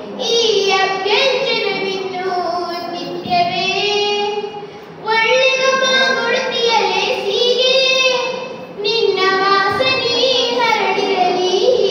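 A girl singing solo into a handheld microphone, with long held notes that bend in pitch. She pauses briefly for breath twice, near the middle and about three quarters of the way through.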